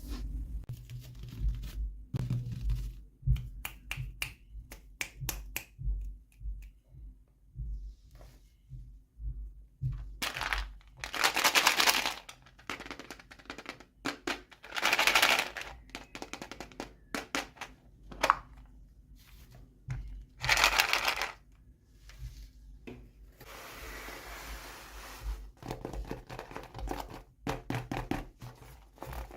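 Toy packaging being opened by hand: plastic wrappers crinkled and torn in several short bursts, between many small clicks and taps of plastic pieces.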